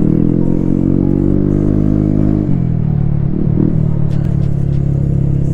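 TVS Ntorq 125 scooter's single-cylinder four-stroke engine running loud through an Akrapovic exhaust with its dB killer removed. The pitch climbs for about two and a half seconds, falls away sharply as the throttle closes, blips once briefly, then holds steady.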